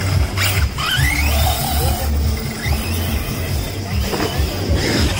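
RC cars racing, their motors whining and rising in pitch as they accelerate, with music playing underneath.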